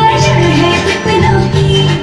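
Loud music with a bass line and a melody, played for a stage dance.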